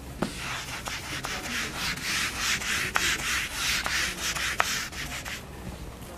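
A handheld whiteboard eraser wiping marker writing off a whiteboard: repeated rubbing strokes that stop about five seconds in.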